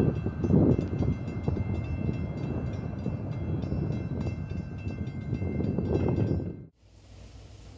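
Passing CTrail Hartford Line train 6454 rumbling along the track, with faint steady high tones on top, easing off gradually. It cuts off suddenly near the end, leaving only faint wind.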